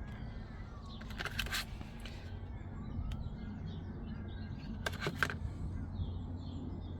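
Faint bird chirps over a low steady hum, with two short clusters of clicks, about a second in and about five seconds in.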